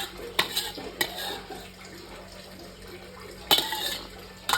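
A cooking utensil knocking against a pan several times over a low steady background, typical of stir-frying vegetables in a pan.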